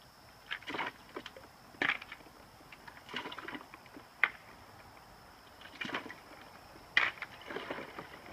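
Ice cubes cracked out of plastic ice cube trays and dropped into a plastic tub: irregular clatters and knocks of ice on plastic, about seven in all, the sharpest a little after the middle and near the end.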